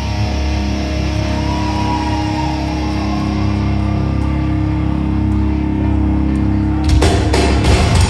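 Live rock band: distorted electric guitar holding ringing chords over bass, then about seven seconds in the drums crash in and the full band starts playing louder.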